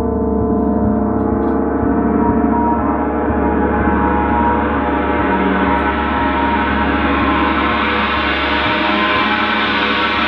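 Large Paiste gong played with a felt-headed mallet. It gives a loud, sustained wash of many overlapping ringing tones that grows steadily brighter as the playing goes on.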